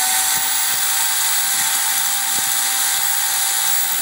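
Corded electric drill mounted in a lever-fed portable drill-press stand, running at steady full speed with a constant high whine as the bit is pressed down into the work.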